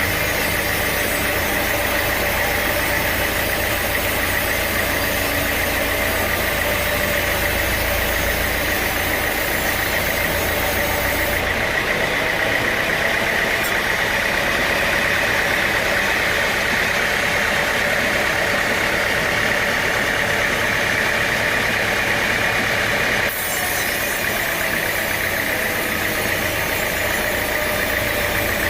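Sawmill machinery running steadily, an engine drone with a steady high whine. The sound changes abruptly twice, about eleven and twenty-three seconds in.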